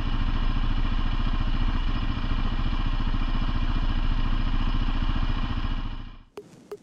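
ATV engine idling steadily up close, its pitch unchanging. About six seconds in it fades out, and a few sharp, quick clicks follow.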